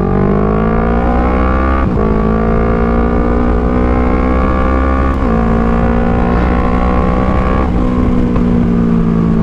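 Kawasaki Z650's parallel-twin engine, breathing through an Orion full aftermarket exhaust, accelerating hard under throttle. The revs climb, drop sharply at upshifts about two, five and nearly eight seconds in, then climb again.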